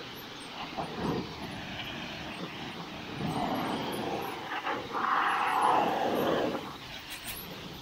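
Pressure washer running, its spray rinsing mud off a Jeep's panels; the hiss swells and fades as the jet moves, loudest a little past halfway.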